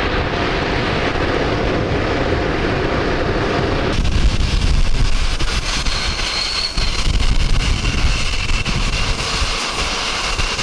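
Jet aircraft engines running steadily, with wind on the microphone. The sound changes abruptly about four seconds in, after which a high engine whine is heard.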